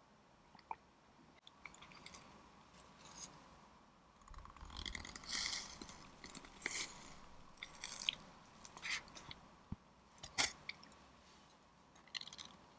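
Close-miked sounds of a slice of tiramisu cake being cut and lifted onto a paper plate, with irregular scrapes and crinkles, then eating sounds. The busiest stretch is a few seconds in, and there is one sharp click near the end.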